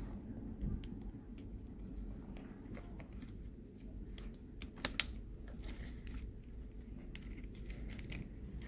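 Scattered small clicks and taps of a laptop's parts being handled during a repair, with one sharper click about five seconds in.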